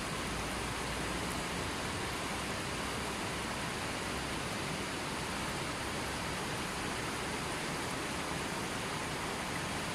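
River water flowing, a steady even rush of running water.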